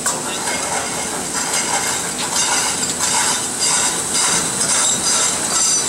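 Yung Hua SM6015 steel slitting line running, its slit cold-rolled steel strips moving through the looping pit: a steady loud hiss with a faint clatter about twice a second from about a second in.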